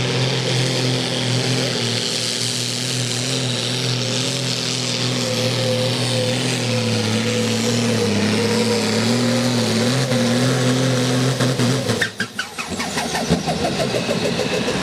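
Turbocharged diesel engine of a farm-class pulling tractor at full load, pulling a brake sled with a steady, heavy drone. About twelve seconds in the engine drops off abruptly as the tractor stalls out under the sled's braking, followed by a few knocks and the engine revving up again near the end.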